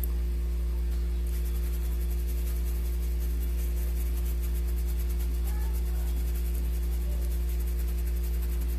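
Steady low electrical hum, with a few fainter tones stacked above it, unchanging throughout.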